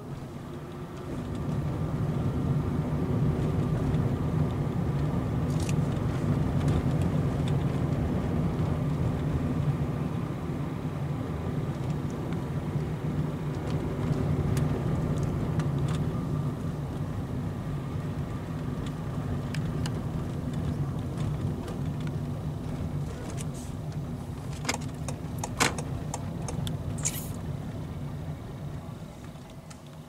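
Car engine and road noise heard from inside the cabin: a steady low hum that swells about a second in and eases off near the end. Several sharp clicks and rattles come close together late on.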